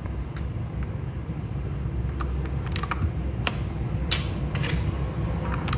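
Mechanical keyboard with unlubed tactile switches (Akko Jelly Sponge and Fantasy Virus) being typed on: irregular key clacks, a few a second.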